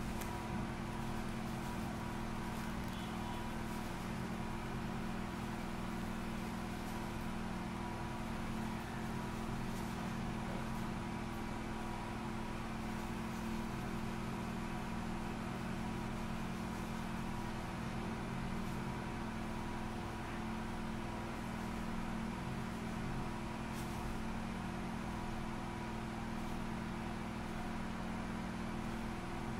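A steady mechanical hum with several constant low tones, unchanging throughout, with no distinct knocks or clicks.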